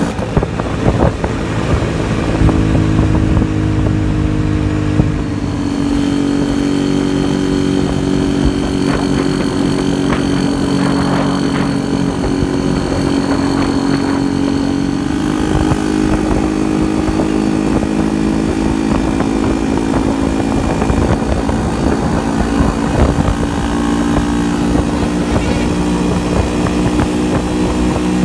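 Yezdi motorcycle engine running steadily at cruising speed, heard from the saddle. Its note rises a little about five seconds in and eases back down around the middle.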